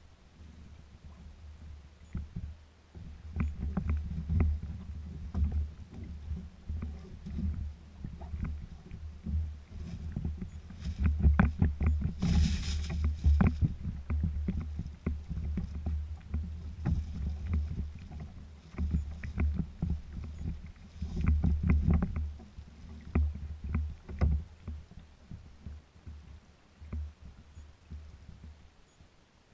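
Water lapping and slapping against a kayak hull in short, irregular knocks, over a low uneven rumble. A brief rushing noise comes about twelve seconds in.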